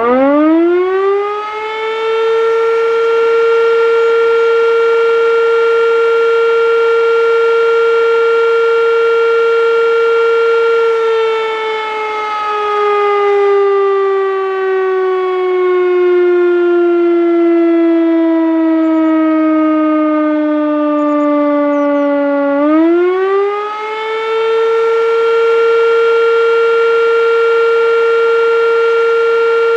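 Sachsenwerk L234 air-raid siren from 1938 winding up to a single steady tone and holding it. About eleven seconds in, its pitch slowly sags for some ten seconds. It then winds quickly back up to full pitch and holds steady to the end.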